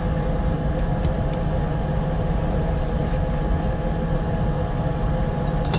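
Motorboat engine running steadily under way, with a constant low hum and no change in speed.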